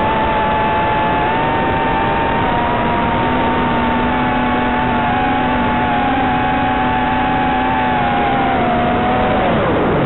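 FPV quadcopter's motors and propellers whining over a steady hiss, the pitch wavering as the throttle changes, then dropping sharply near the end as the throttle comes off.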